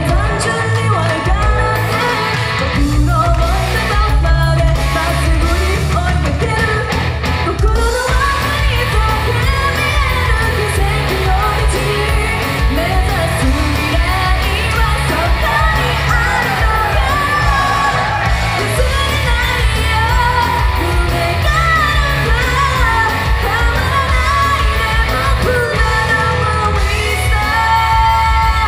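A woman singing live into a handheld microphone over a recorded pop backing track, the sung melody and steady beat carrying on without pause.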